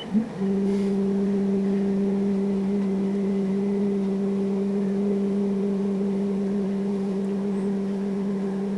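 Uniformation GK3 Ultra resin printer's Z-axis stepper motor driving the build plate down toward the resin vat at travel speed. It gives a steady, even hum that starts with a short blip just after the beginning.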